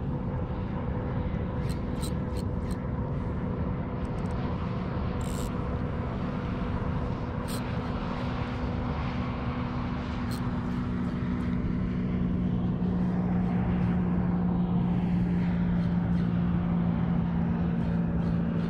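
A steady engine drone with a few scattered sharp clicks; the drone grows louder about two-thirds of the way through.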